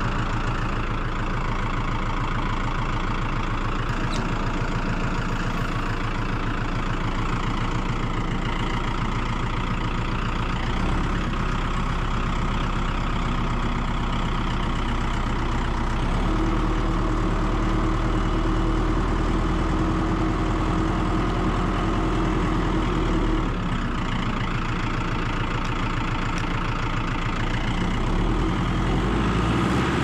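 Compact tractor's diesel engine running steadily while the tractor is put in gear and driven. For several seconds in the middle the engine note grows heavier and a steady hum joins it.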